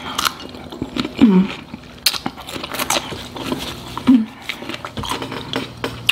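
Close-miked chewing and lip-smacking of food, irregular wet clicks and smacks, with a couple of short hums of the voice about a second in and again about four seconds in.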